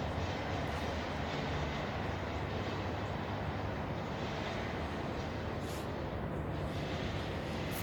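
A loud, steady mechanical drone: an even rushing noise over a low hum that keeps on without a break. Its source is unidentified.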